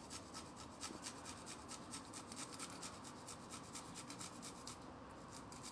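A garlic clove rasped back and forth on a small metal hand grater: faint, quick, even strokes, several a second, that stop about five seconds in.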